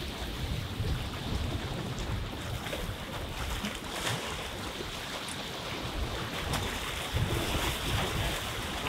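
Small waves breaking and washing against shoreline rocks, with gusts of wind buffeting the microphone as a low rumble.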